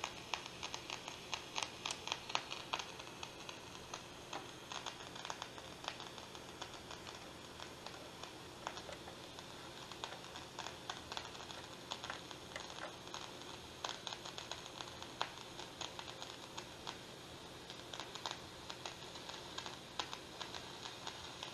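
Hallicrafters SX-99 shortwave receiver hissing and crackling with irregular static as the dial is slowly tuned, over a low steady hum.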